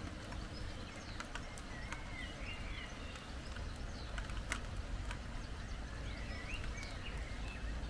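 Small birds chirping in short, scattered calls over a steady hiss of outdoor background noise, with a few sharp ticks.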